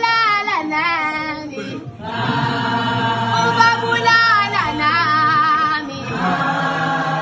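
Background music with several voices singing in a choir-like blend over a held low note.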